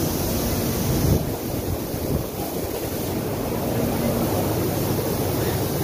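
Steady din of a busy indoor exhibition hall, a dense low rumbling noise with no single clear source, with a brief low knock about a second in.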